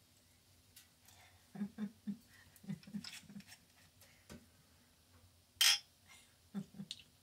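Glass beer bottles and tableware being handled at a table: a run of soft low knocks and clinks, then a short sharp hiss a little past halfway, then two more soft knocks near the end.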